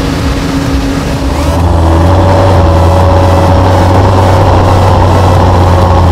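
Diesel engines of maize-harvest machinery running steadily. About a second and a half in, the sound switches to the louder, deeper, steady drone of a Deutz-Fahr tractor heard from its bonnet.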